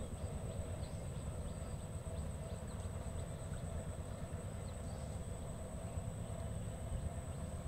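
Outdoor background noise: a steady low rumble with a thin, high-pitched whine and faint scattered ticks.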